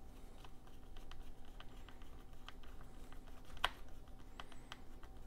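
Scattered light clicks and ticks of a small tri-wing screwdriver and fingers working a battery retaining screw into a MacBook Pro's case. One sharper click comes a little past halfway, over a faint steady hum.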